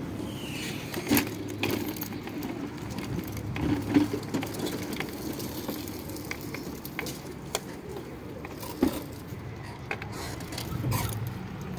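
Mobility scooter moving over pavement with a steady low hum and scattered clinks and rattles, the loudest about a second in, about four seconds in and near nine seconds.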